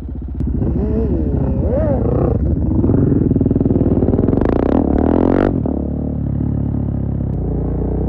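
2017 KTM 690 Duke's single-cylinder engine breathing through a full Akrapovic exhaust with a GPR decat link, revving up and down as the bike pulls away. The revs climb hard and are loudest through the middle, then drop suddenly about five and a half seconds in, and the engine runs on steadier and a little quieter.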